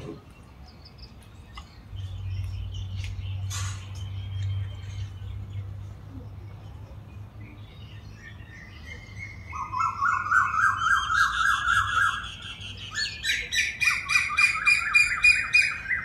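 A bird calling in fast runs of repeated notes that step up in pitch, starting a little past halfway and loudest near the end. Earlier there is a low steady hum.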